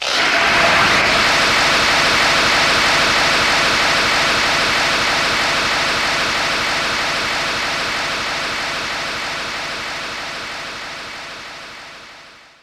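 SpaceGodzilla sound effect: a loud rushing hiss that starts abruptly and slowly fades away over about twelve seconds.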